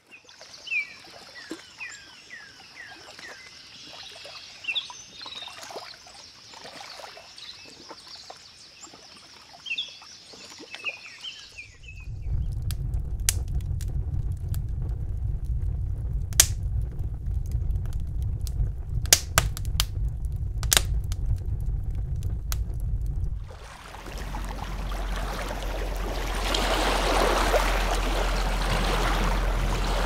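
Birds chirping for the first third. A little before halfway it changes to a wood fire burning in a fireplace, with a low rumble of flames and sharp crackles and pops. In the last six seconds it changes to a steady rush of water.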